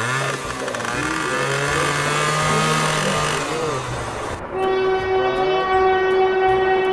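Train sound effect: a loud rushing noise with shifting, gliding tones over a low hum, then about four and a half seconds in a steady train-horn tone that holds to the end, with faint regular clicks.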